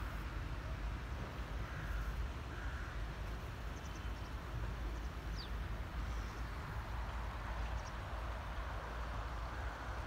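Outdoor ambience: a steady low rumble with a few faint, short high chirps, one of them a quick falling whistle about halfway through.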